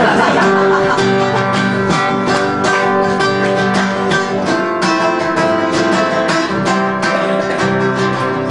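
Acoustic guitar strummed in a steady rhythm, playing the instrumental introduction to a song.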